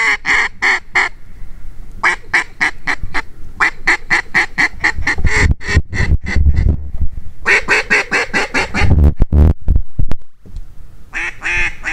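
Mallard duck calls blown by hunters working incoming ducks: several loud runs of quick quacking notes, each run a second or so long, with short pauses between them. A few sharp clicks come about nine seconds in.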